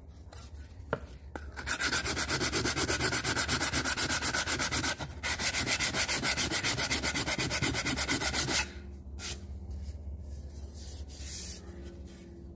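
Sandpaper on a hand sanding block rubbed in rapid, even back-and-forth strokes over an aluminum car seat molding, knocking down its high spots. The strokes start about a second and a half in, break off briefly near five seconds, and stop about eight and a half seconds in.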